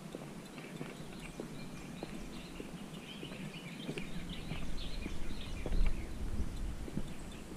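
Footsteps on a paved path at a steady walking pace, about two a second. Small birds chirp in the background for a couple of seconds midway. A low rumble swells toward the end.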